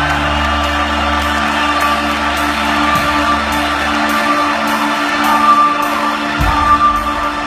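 Live rock band playing an instrumental passage, recorded from the audience: sustained held chords over a light ticking beat, with a deep low tone that fades out about four seconds in.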